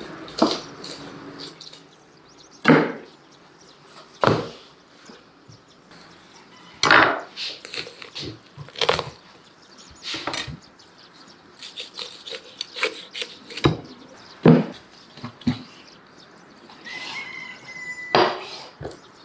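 Knife cutting up a raw turkey on a wooden cutting board: irregular sharp knocks and cracks as the blade strikes the board and breaks through joints, with quieter slicing and handling of the meat in between.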